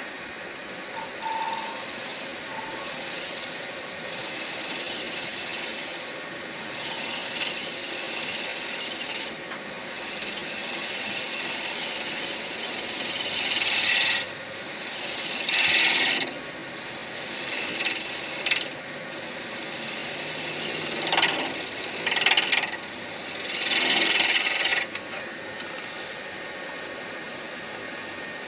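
Midi lathe running steadily while a turning tool cuts into a spinning acrylic pen blank in a series of short scraping passes of about a second each, mostly through the middle of the stretch.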